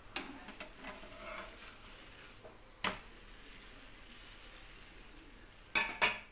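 Steel flat spatula scraping over a rice-flour roti on a hot nonstick tawa, with a light sizzle. Then three sharp clicks: one about three seconds in and two close together near the end.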